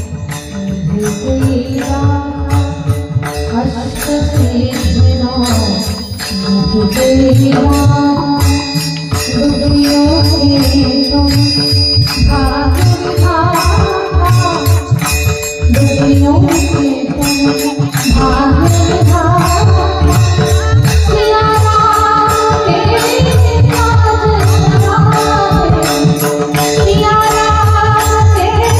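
Devotional kirtan music: a woman's voice singing a bhajan melody over steady drum beats and regular, evenly spaced hand-cymbal strokes.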